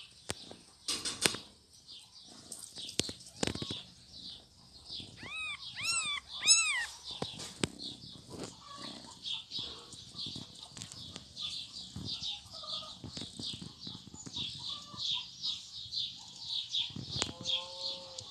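Newborn kittens mewing: a quick run of three or four short, high cries, each rising and falling, about six seconds in, with a lower held cry near the end. A rapid high chirping goes on underneath, and a few sharp knocks come near the start.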